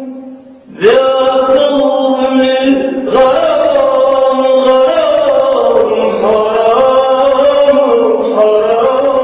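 A man's voice singing a slow, drawn-out chant, long held notes sliding between pitches. It breaks off briefly at the start and comes back in strongly about a second in.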